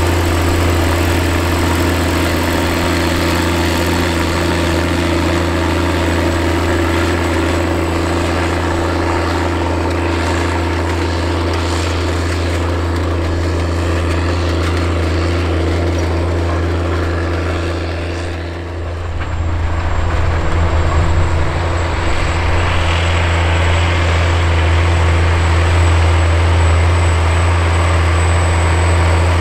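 Case IH 535 HD Steiger articulated four-wheel-drive tractor's diesel engine running steadily under load as it pulls a vertical tillage tool, a deep even drone. The sound dips briefly about two-thirds of the way through and comes back a little louder.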